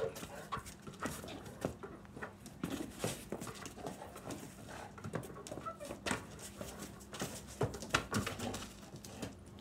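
A Doberman and a person scrambling after a basketball on concrete paving: irregular knocks and scuffs of the ball, paws and shoes, with the dog's own noises among them.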